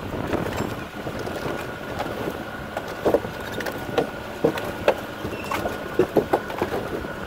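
Vehicle driving along a rutted track: steady engine and road noise with a faint constant whine, and scattered sharp knocks and rattles from about three seconds in.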